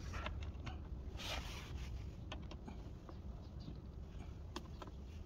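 Light scattered clicks and a short rustle of small fasteners being handled and fitted by hand under the plastic cover of an electric scooter's footboard, over a steady low rumble.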